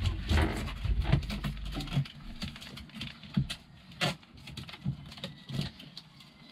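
Protective plastic film being peeled off an acrylic window pane: irregular crackling and rustling of the film, with sharper ticks scattered through it.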